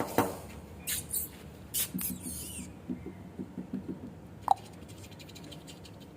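Toy Pomeranian puppies scuffling and pattering about, with scattered clicks and scrapes and one short high squeak about four and a half seconds in.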